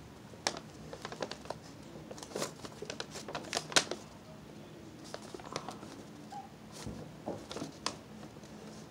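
Irregular crinkling and rustling of a folded sheet of paper being handled close to the microphone, in quick clusters of sharp crackles with short quieter gaps.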